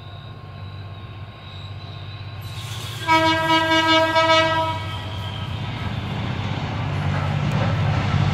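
GM GT22 diesel locomotive approaching: its engine rumble grows steadily louder, and about three seconds in its horn sounds once for about a second and a half.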